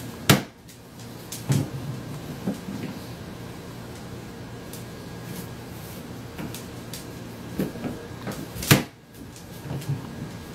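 Hinged plastic lid of a pet-food storage bin banging shut or dropping open twice, sharply, once just after the start and once about nine seconds in, with lighter knocks and clacks between as a scarlet macaw works at it with its beak.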